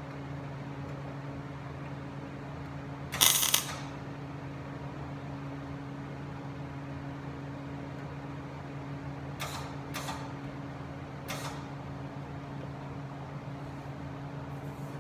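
MIG welder tack-welding a sheet-metal patch panel onto a truck door: one loud half-second burst of arc crackle about three seconds in, then three short, quieter bursts around ten seconds in, over a steady low hum.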